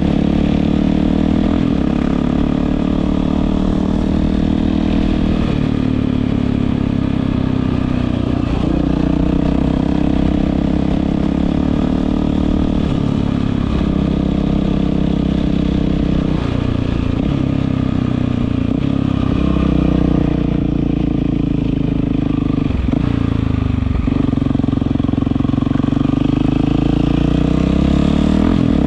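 Yamaha WR450F single-cylinder four-stroke motorcycle engine running through an Akrapovič exhaust, its pitch rising and falling repeatedly with several quick drops and climbs in revs.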